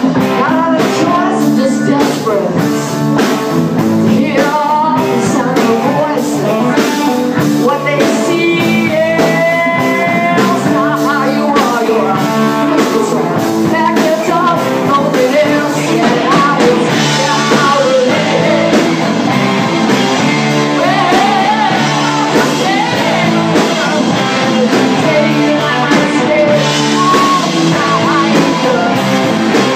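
A live rock band playing a song, with a singer over guitars and a steady beat.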